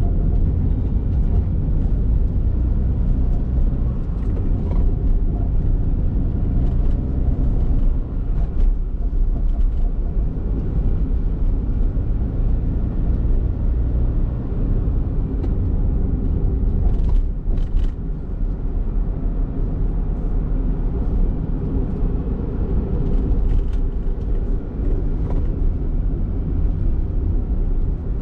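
Honda kei car driving: steady engine and road noise, a low rumble with a faint engine hum.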